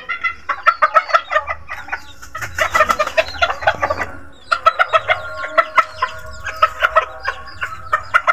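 Chickens clucking in rapid runs of short notes, in three bouts with the last one the longest.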